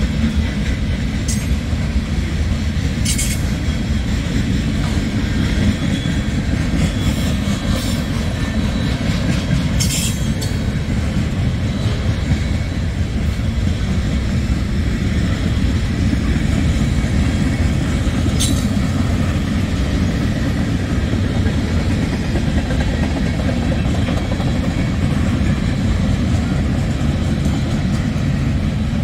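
CSX freight train rolling past: a steady low rumble of wheels on rail, with a few sharp clicks in the first ten seconds and one more about eighteen seconds in.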